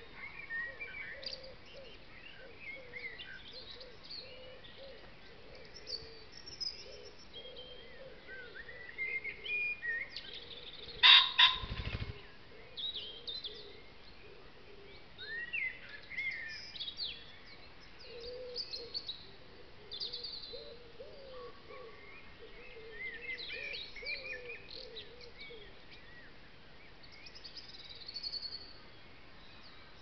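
Woodland birdsong: many small birds chirping and singing all through, with a lower, wavering call underneath. About eleven seconds in, one loud, short sound close to the microphone stands out above the birds.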